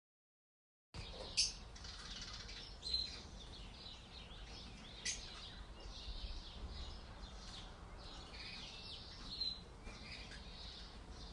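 Birds chirping: many faint, short, high-pitched chirps and calls over a low steady hum, starting about a second in, with a few sharper, louder chirps.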